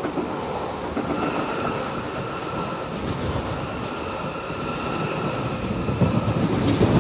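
Electric S-Bahn multiple unit running past on the track below: a steady rumble of wheels on rails with a high whine held at a constant pitch. Sharp wheel clicks and a louder rumble come near the end as the rear of the train goes by.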